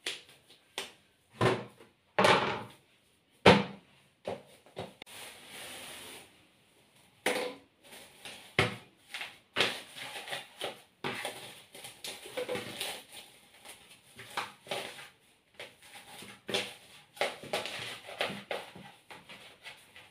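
Hands kneading soft chapati dough in a plastic basin: irregular squelches, slaps and knocks against the bowl, with the loudest slaps in the first few seconds.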